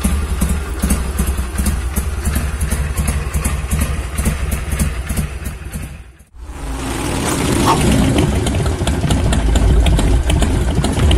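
Harley-Davidson Sportster 883's air-cooled 883 cc V-twin idling steadily through its stock exhaust with the muffler cut open. It cuts off abruptly about six seconds in, and intro music follows.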